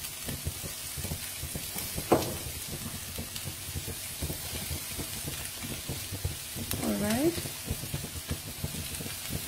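Sliced mushrooms and capsicum frying in butter in a nonstick pan, sizzling steadily while a wooden spatula stirs and taps against the pan. One sharper knock comes about two seconds in.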